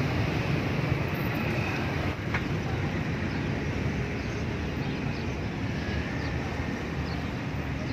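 Steady street background noise with a low rumble, dipping briefly about two seconds in.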